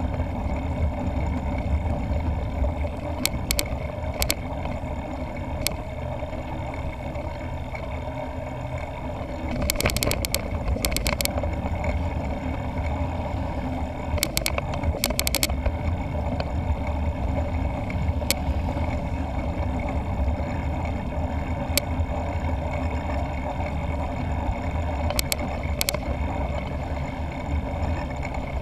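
Riding noise from a bike-mounted camera on a moving mountain bike: wind buffeting the microphone over a steady low rumble of the ride, with scattered sharp clicks and rattles, bunched about ten and fifteen seconds in.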